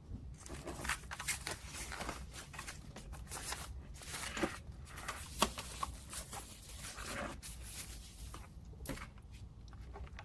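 Packaging of a boxed keyboard being handled and unwrapped: irregular rustling and crinkling, with a couple of sharper clicks or knocks near the middle.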